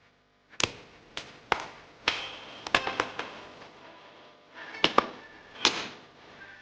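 A series of sharp knocks and clinks from kitchen containers and utensils being handled, some with a short glassy ring, about a dozen spread irregularly.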